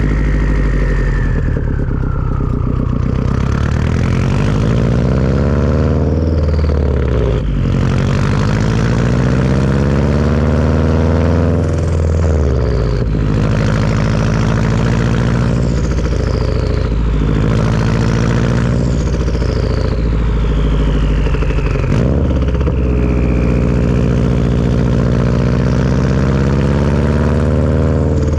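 Turbocharged Subaru flat-four with a Tomei turbo-back exhaust accelerating through the gears: the engine note rises in pitch and drops at each of several gear changes. A high turbo whistle glides down in pitch several times over it.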